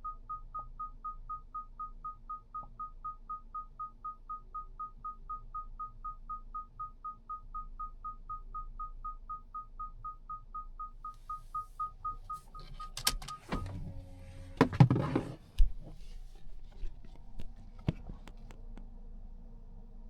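Mazda 6e's in-cabin warning chime beeping rapidly at one pitch, about three beeps a second, stopping about thirteen seconds in. Then comes a rustling, handling noise and two loud thumps, followed by a few faint clicks.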